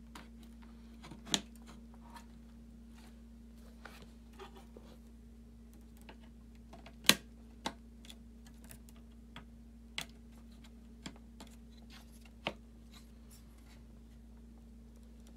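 Scattered clicks and knocks of plastic and metal as a graphics card is handled in a mining rig frame and its power cable connector is plugged in, the loudest about seven seconds in. A faint steady hum runs underneath.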